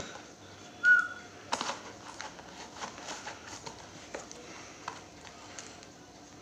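Kitchen knife cutting into the tape and cardboard of a small product box: faint scratching and small clicks. About a second in there is a short high squeak, then a sharp tap.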